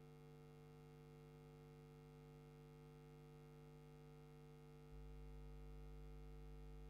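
Near silence: room tone with a faint steady hum. About five seconds in, a low rumble gets louder and holds.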